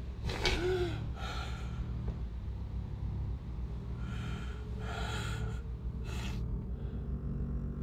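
A person breathing heavily in short, ragged gasps, about five breaths, over a steady low hum.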